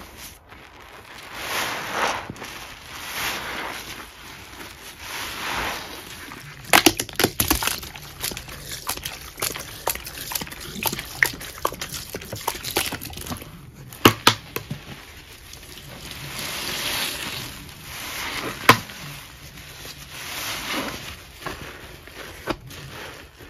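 Wet Ajax powder paste squished and kneaded by gloved hands: repeated swelling squelches with fine crackling, and bursts of sharp pops about a third of the way in, just past halfway and near the end.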